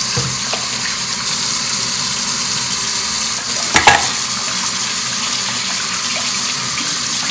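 Kitchen tap running steadily, filling a pot with water for boiling, with a brief knock about halfway through.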